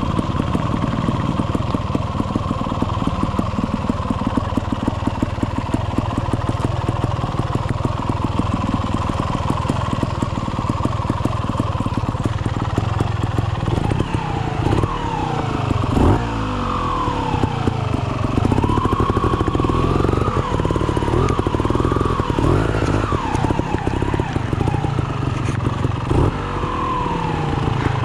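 Trials motorcycle engine running at low revs while being ridden. In the second half its pitch rises and falls in a series of quick throttle blips.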